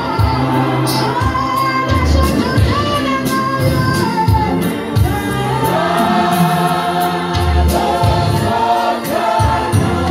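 Gospel music: a choir singing over a band with bass and drums, keeping a steady beat.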